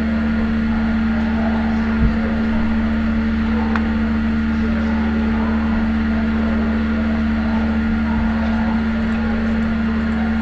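Steady electrical hum and hiss from the recording setup, with one or two faint clicks.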